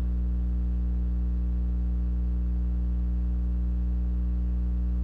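Steady electrical hum with a stack of even overtones, unchanging throughout.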